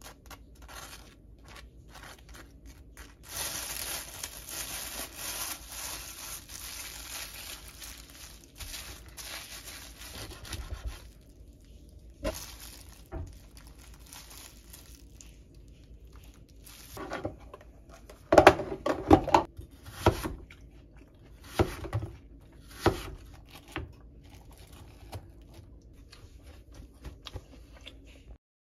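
Baking paper crinkling and rustling as a thick toast sandwich is wrapped, with a knife scraping sauce onto toasted bread. A run of sharp crunches and knocks comes a little past the middle.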